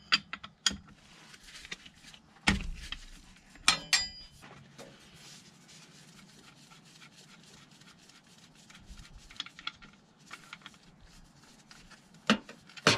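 A metal spanner clicks and clanks on the gearbox oil pump strainer as it is cracked loose, with a sharp knock about two and a half seconds in and ringing metallic clinks near four seconds. Then faint rubbing and light ticking as the threaded strainer is turned out by hand, and a click near the end.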